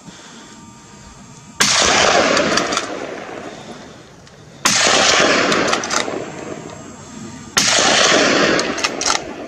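Three loud gunshots from a hunting gun, about three seconds apart, each cutting in suddenly and followed by a long echo that dies away over a second or two.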